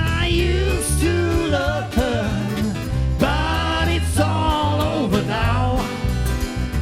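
Live band music: bass and drums under a wavering lead melody line.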